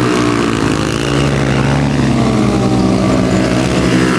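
Several motorcycle engines held at high revs together, pitch wavering up and down, as the bikes spin their rear tyres in smoky burnouts and drifts.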